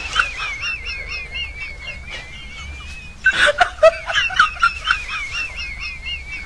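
A very high-pitched, trilling giggle that wavers quickly up and down, heard twice: a second run starts about three seconds in.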